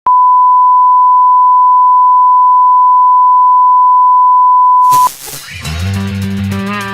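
A steady, loud 1 kHz test tone that holds one pitch for about five seconds and then cuts off. Music with bass and guitar starts as it ends.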